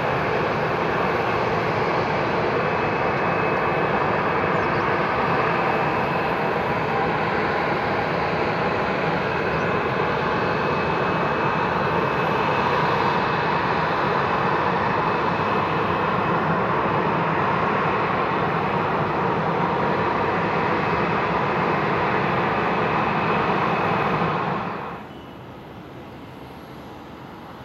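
Boeing 737-800 airliner's CFM56 jet engines running loud and steady with a high whine as it rolls down the runway on a touch-and-go. The sound drops off sharply near the end.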